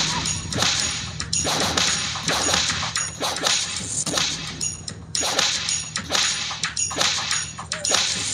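Loud metallic clangs and crashes, about two a second in an uneven rhythm, each with a short high ring, accompanying a staged stick-and-sword fight.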